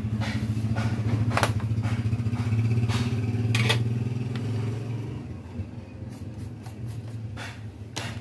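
A steady low engine drone, loudest in the first few seconds and easing off after about five, with a few sharp clicks over it.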